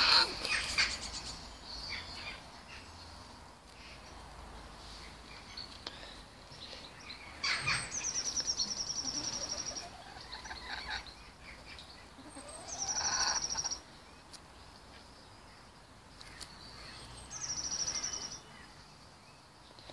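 A small songbird singing three short songs several seconds apart. Each song opens with a quick downward sweep and runs into a rapid high trill lasting a second or two, with faint chirps between.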